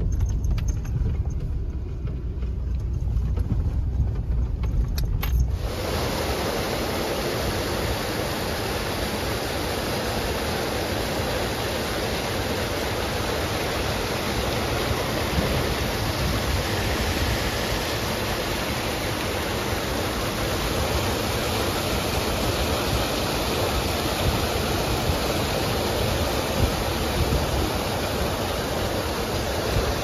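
A low rumble for the first few seconds, then steady rushing water from the fish farm's concrete raceways and spillways, an even hiss that starts suddenly about five seconds in.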